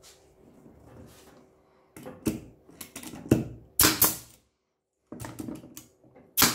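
Plywood pieces and a bar clamp being handled and clamped, with clicks and knocks, then a pneumatic brad nailer firing sharp shots into the clamped plywood, the loudest a little past halfway and again at the very end.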